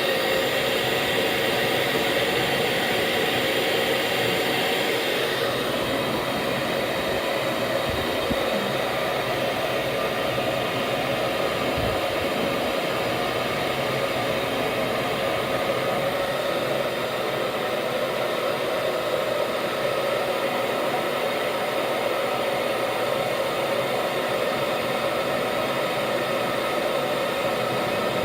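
Handheld hair dryer running steadily, its fan and airflow a constant rushing whir with a steady hum in it, blowing hot air onto a phone.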